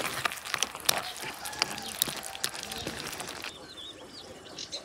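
Thick stew bubbling and popping in an earthenware pot as a wooden spoon stirs it, a dense run of small pops and clicks. About three and a half seconds in it cuts off suddenly to quiet open air with small birds chirping.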